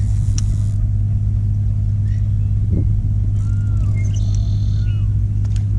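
Steady low motor hum, unbroken and loud. A few short chirping bird calls come over it in the second half.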